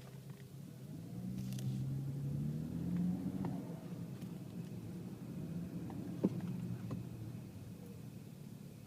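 BMW 335i's turbocharged inline-six accelerating: the engine note rises for about two seconds, then falls away as the throttle is eased off. There is a short, sharp click a few seconds later.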